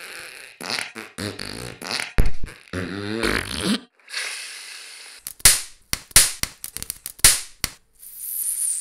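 Electrolytic capacitor failing and venting: a wet, sputtering fizz from its top vent, then a brief hiss and a quick run of sharp pops over about two seconds, with a high hiss starting near the end.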